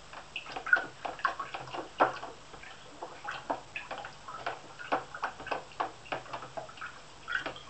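A thin stick stirring hydroponic nutrient solution in a plastic bucket: irregular light clicks and taps of the stick against the bucket, a few each second, with faint swishing of the water.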